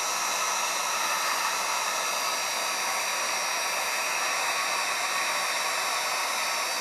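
Electric heat gun running steadily, a constant rush of blown air with a high whine, aimed at a tablet's glass edge to heat and loosen the adhesive under the glass.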